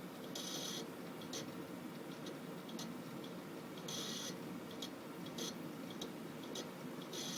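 Western Digital Caviar 1 TB hard drive running with a steady hum, giving short high-pitched chirps about every three and a half seconds and scattered faint ticks between them: the strange noise the drive has made since formatting.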